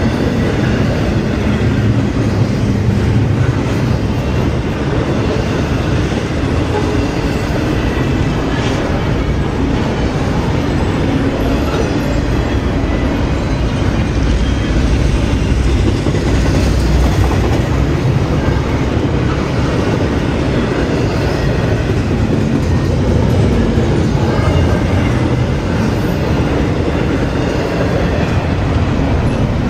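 Double-stack intermodal freight train's container well cars rolling past, a steady noise of steel wheels on rail.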